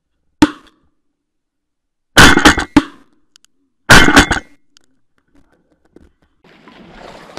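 Two loud shotgun shots about a second and a half apart, each a short burst of sharp cracks, after a single sharp click just before.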